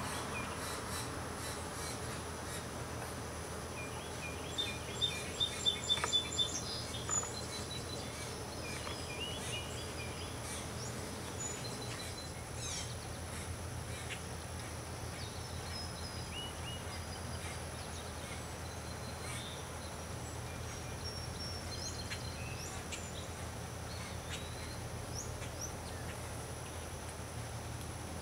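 Small birds chirping, with a quick run of louder chirps a few seconds in, over a steady low hum.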